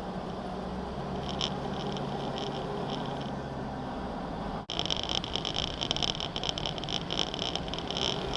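Off-road 4x4 engine running at low speed, a steady low hum. Over it a high, fast-pulsing chirring, faint at first; after a sudden cut about halfway through it becomes louder and is the loudest thing heard.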